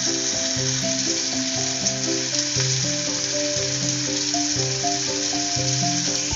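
Onions, tomato and spice paste frying in hot oil in a kadai: a steady sizzling hiss, with background music playing a melody of short held notes over it.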